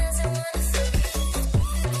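Background music: an electronic dance track with a steady beat and a strong bass line.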